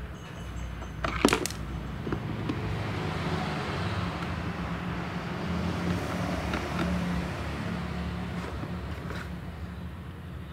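Small clicks and taps of screwdriver work on a laptop's plastic bottom case, the sharpest click about a second in, over a steady low background rumble.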